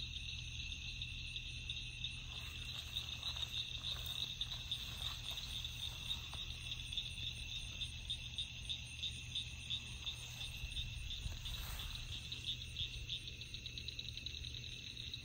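Steady chorus of night insects: a high-pitched chirring that pulses rapidly and never stops, over a low steady hum.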